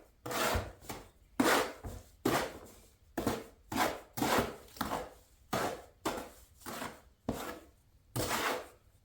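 Stiff, too-thick mortar being mixed by hand, a tool scraping and slapping through the mortar in short repeated strokes, roughly one every three-quarters of a second.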